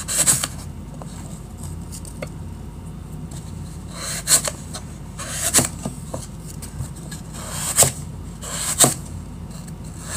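A knife cutting melamine-foam magic erasers into small cubes, with a handful of short, separate scraping strokes a second or more apart over a low steady hum.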